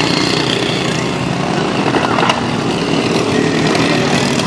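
Racing lawn mower engines running steadily.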